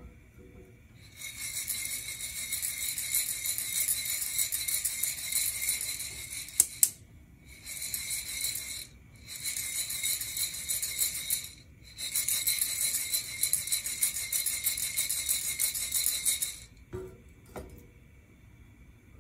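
Coffee beans rattling inside a Nuvo ceramic hand roaster as it is shaken over the burner, in four spells with brief pauses. There are two sharp clicks about six and a half seconds in, and the rattling stops a couple of seconds before the end.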